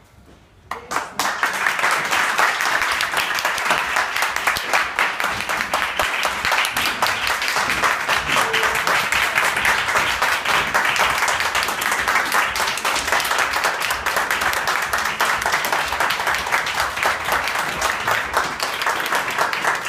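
A small audience applauding, many hands clapping at once; it starts suddenly about a second in and keeps going steadily.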